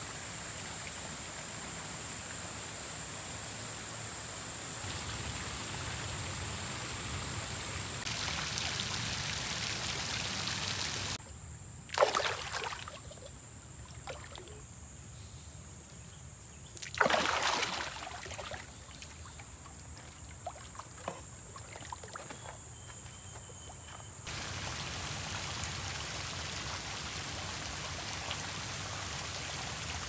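Outdoor ambience of running water with a steady high-pitched insect drone. Two sudden splashes come about 12 and 17 seconds in.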